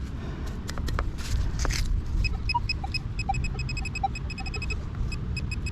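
A handheld metal-detecting pinpointer beeping in quick short pulses as it is worked in the dig hole over a target. Before the beeping starts there are a few scrapes and knocks of digging in the soil.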